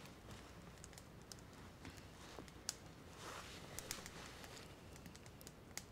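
Faint, scattered small clicks and light rustling of hands handling a small object with a cord, over a low steady background hiss.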